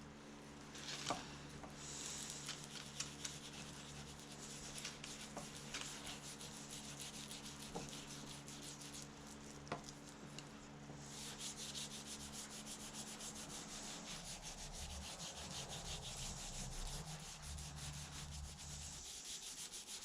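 A rag rubbing finish into a wooden knife handle: soft, even scrubbing strokes with a few light clicks, growing busier about eleven seconds in, over a low steady hum.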